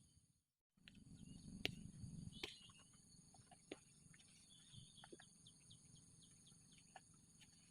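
Faint outdoor ambience: a steady high-pitched insect drone with scattered faint bird chirps and a few small clicks, after a brief dropout near the start.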